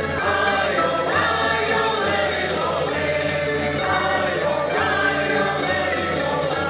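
Portuguese folk ensemble (grupo de cantares) performing live: mixed voices singing together in chorus over guitars and other string instruments.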